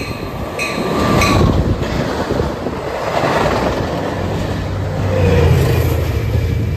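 Diesel-hauled passenger train passing close by, its wheels clattering over the rail joints over a steady low engine rumble.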